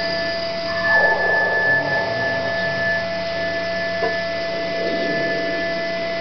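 Eurorack modular synthesizer playing a drone of several steady, sine-like tones over a grainy noise texture that swells about a second in, with a brief tick about four seconds in.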